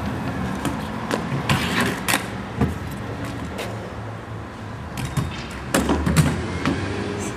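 Stunt scooter clattering as it is ridden and handled, its wheels and deck knocking against the concrete and a low wave ramp in a string of sharp knocks, over a steady low hum.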